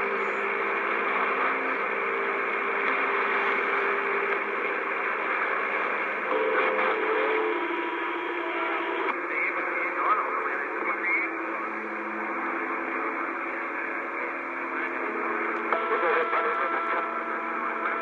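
CB radio receiver putting out static, with several steady tones over the hiss that hold for a second or two and then jump to a new pitch.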